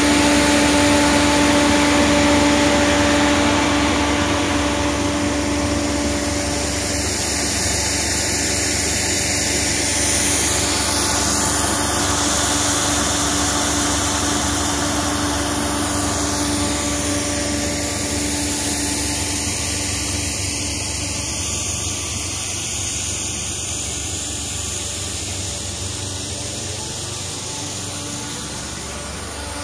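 Linko fan snow gun running: a wide rush of blown air and water spray over a steady motor-and-fan hum. It grows gradually fainter over the second half.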